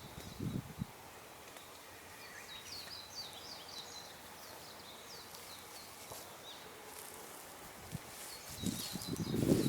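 Wild birds calling in short, repeated high chirps. Low rustling and thumps in the first second, and louder rustling and thumping starting near the end.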